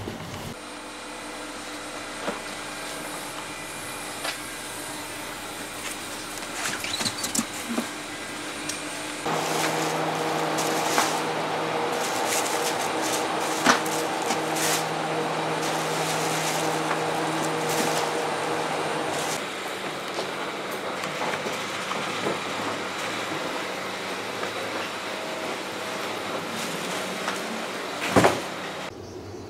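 Steady mechanical hum with scattered knocks and clatters as food and blue plastic crates are handled, and one loud thump about a second before the end as crates are loaded into a car's boot.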